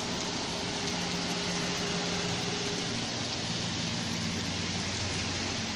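Heavy rain falling on the road and pavement, a steady hiss, with a faint low hum underneath.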